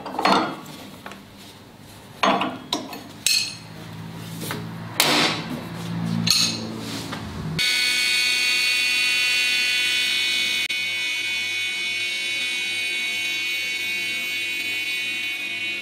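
Metal clinks and knocks of spanners working the arbor nut of a table saw blade. About halfway through, a table saw starts running steadily with a high whine as its blade cuts along the edge of a wooden board.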